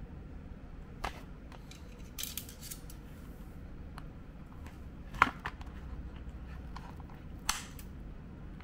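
Scissors cutting into the cardboard backing of a toy blister pack: a few sharp snips and crunches, the loudest about five seconds in.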